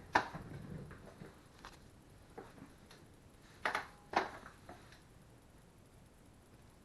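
A few sharp clicks and light knocks, the loudest pair about four seconds in, as leftover burger is put into a dog bowl, then quiet room tone.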